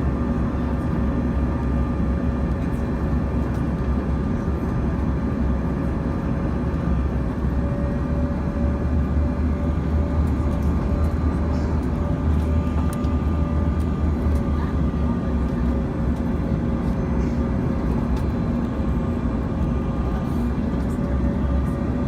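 Cabin noise inside a Bombardier CRJ-200 regional jet in flight: a steady, loud rumble of airflow and the hum of its rear-mounted GE CF34 turbofan engines, with a few steady tones over it.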